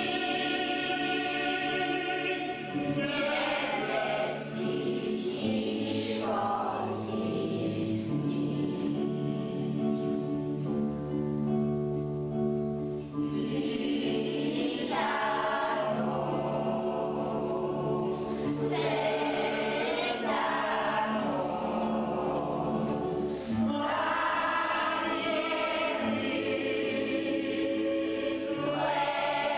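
A choir singing a slow Christmas song in sustained, held notes, with the music continuing without a break.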